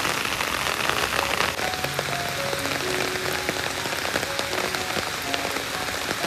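Steady rain falling in a dense, even hiss. Over it, soft background music plays a slow melody of single held notes.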